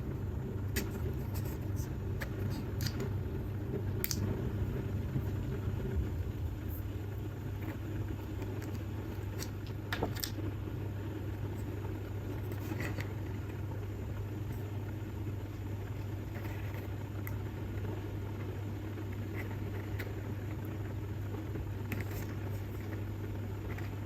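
A steady low hum, with scattered light clicks and taps over it.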